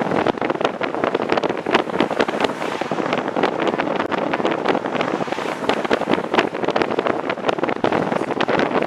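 Wind rushing in through an open car window and buffeting the microphone in rapid gusts, over the steady noise of the moving car.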